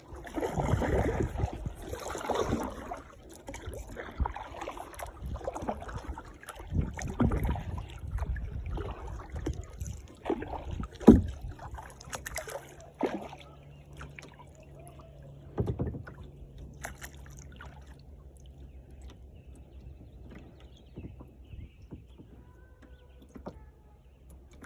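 Kayak paddle strokes splashing and sloshing water, with a sharp knock near the middle as the loudest sound. The strokes thin out after about the halfway point and the rest is quieter, with only occasional drips and light splashes.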